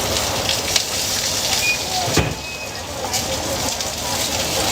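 Busy street food stall ambience: a steady hiss with scattered clicks and knocks, and a brief high beep about two seconds in.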